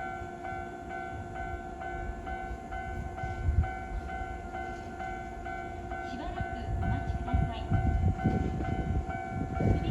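Japanese level-crossing warning bell ringing in a steady repeating clang, about twice a second. In the second half a Keikyu New 1000 series electric train's wheels rumble louder on the rails as it reaches the crossing.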